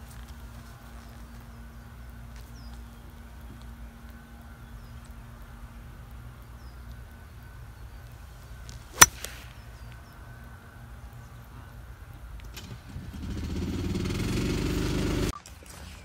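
Golf iron striking the ball off fairway turf: one sharp, crisp click about nine seconds in. Near the end a rising rush of noise that cuts off suddenly.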